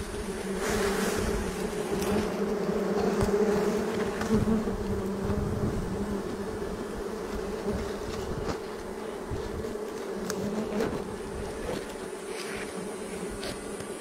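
A swarm of honey bees buzzing around a wild comb: a steady, droning hum, louder in the first half and easing off after about eight seconds, with a few light clicks.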